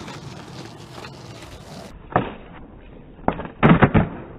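Skateboard on a street: a rolling hiss with a single sharp knock about halfway through, then near the end a quick cluster of loud clacks as the tail pops and the board flips in a kickflip.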